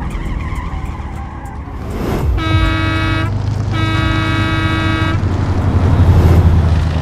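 Two blasts of a vehicle horn, a shorter one and then a longer one on the same pitch, over a low steady engine rumble that swells near the end.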